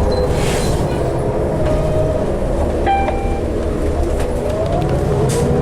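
A 2012 New Flyer D60LFR articulated diesel bus heard from inside while moving: a steady engine and road drone, with a rising whine shortly before the end and two short hisses.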